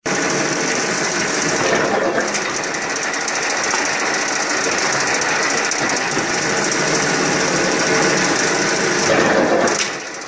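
Small-diameter spindleless log core veneer peeling machine running, a fast, steady mechanical rattle from its rollers and drive; the noise drops near the end.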